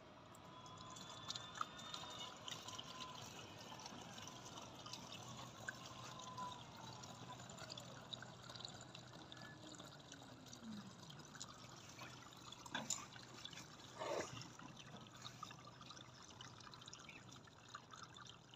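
Date palm sap trickling steadily from an aluminium pot through a plastic funnel into a plastic bottle, with a couple of knocks about two-thirds of the way in.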